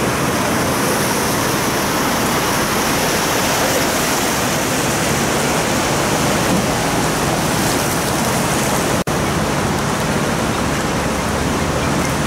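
Heavy downpour: a loud, steady rush of rain and running water that cuts out for an instant about nine seconds in.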